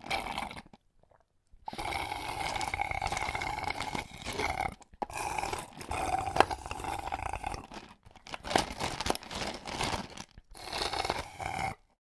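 A drink slurped through a straw from a cup with ice. There is one short slurp, then four longer slurps of one to three seconds each, with brief breaks between them and a few sharp clicks among them.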